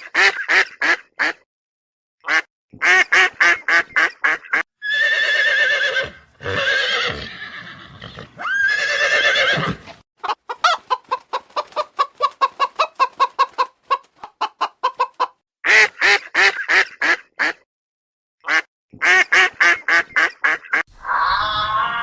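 Poultry calling: runs of short, rapid calls, a few longer drawn-out calls near the middle, and a fast steady run of short calls after that.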